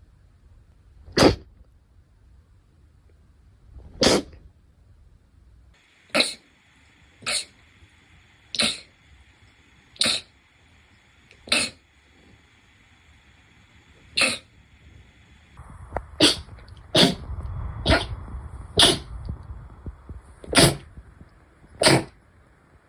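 A run of short, sharp sneezes, about fourteen in all, one to two seconds apart and coming faster near the end.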